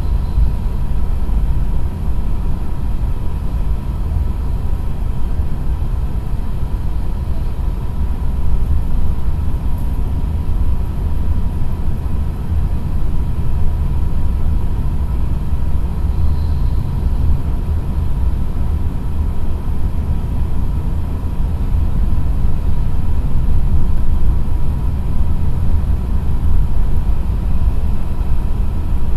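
Cabin noise inside a JR East E6 series shinkansen car cruising at about 300 km/h: a steady low rumble with a faint steady tone above it.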